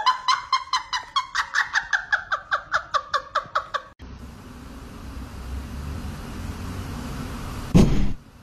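High-pitched laughter in quick pulses, about six a second, falling a little in pitch. Then a low steady rumble and a single loud thud near the end as a cat drops into a laundry hamper.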